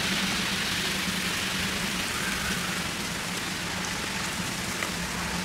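A steady, even hiss of outdoor background noise with a faint low hum underneath, no distinct events.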